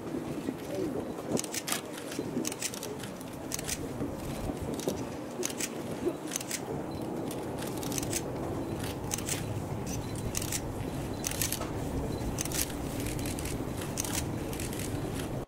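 Steady low background noise with irregular small clicks and crackles scattered throughout.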